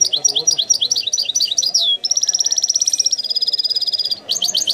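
European goldfinch singing: a run of quick rising chirps, then about two seconds of fast trills held at one pitch, stepping a little lower halfway through, before the quick chirps start again near the end.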